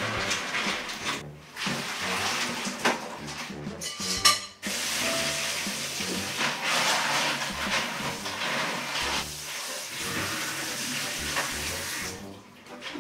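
Kitchen tap water running hard into a stainless steel sink while cockles are rinsed in a bowl, shells clattering, starting about four and a half seconds in. Before that, clinks of a ladle stirring a steel pot.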